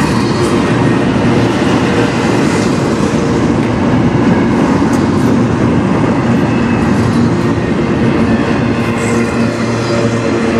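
Double-stack intermodal freight train's container well cars rolling past close by: a loud, steady rumble of steel wheels on rail.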